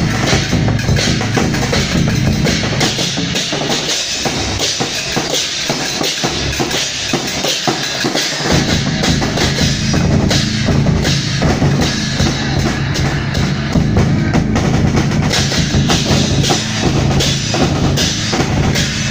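Taiwanese temple-procession drum ensemble (轎前大鼓): a large barrel drum and smaller drums beaten in a fast, dense rhythm, with a cymbal on the drum stand and handheld bronze cymbals clashing along. The deepest drum beats thin out for a few seconds and come back in strongly about halfway through.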